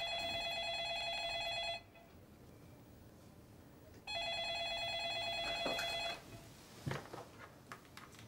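Electronic office desk phone ringing with a warbling trill, twice, each ring about two seconds long with a gap of about two seconds. Then a few clicks and knocks as the handset is lifted.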